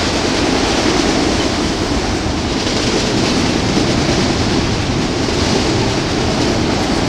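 Freight train of enclosed autorack cars passing close at speed: a loud, steady noise of steel wheels rolling on the rails.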